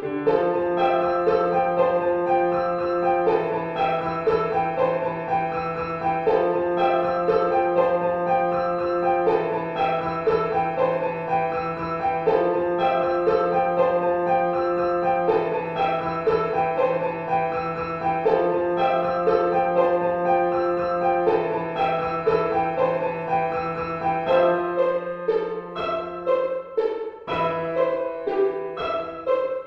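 Instrumental background music: a piano-like keyboard figure that repeats every few seconds over a long held low note, which changes near the end.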